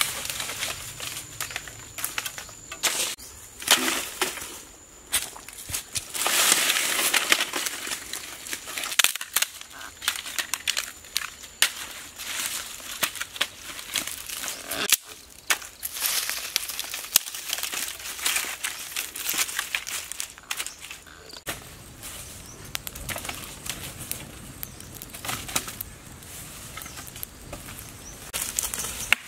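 Dry leaves rustling and crunching and dry twigs snapping as sticks are gathered and laid for a small campfire: an uneven run of sharp cracks and scrapes, with a louder stretch of rustling a few seconds in.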